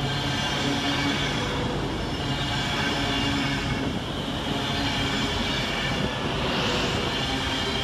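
An Avanti West Coast Class 390 Pendolino electric train running past on the platform road, a steady rumble of wheels on rail with a low hum. About six seconds in, a brief high squeal rises quickly in pitch.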